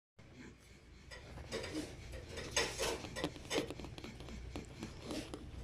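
Boston terrier puppies scuffling and jostling on a shaggy rug: an irregular run of small clicks and rustles, busiest in the middle, over a low steady hum.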